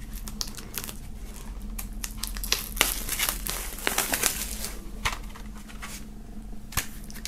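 Plastic shrink-wrap being peeled off a CD case and crumpled by hand: irregular crinkling and crackling.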